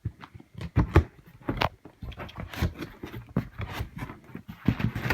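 Box packaging being handled and opened: an irregular run of crinkles, scrapes and knocks of cardboard and plastic wrap.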